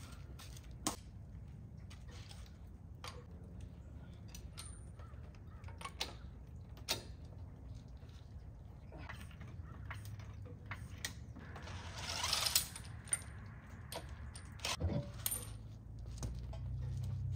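Scattered light metallic clicks and knocks as a floor jack is worked under the car and the wheel is handled, with a brief rush of noise about twelve seconds in and a low hum near the end.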